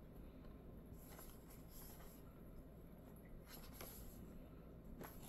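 Near silence: room tone with a few faint rustles and ticks of a cardboard product box being turned over in the hands.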